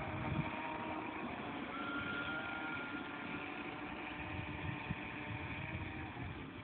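Radio-controlled model boat running out across the water, its motor a faint steady whine with a thin higher tone from about two seconds in, over a low rumbling haze.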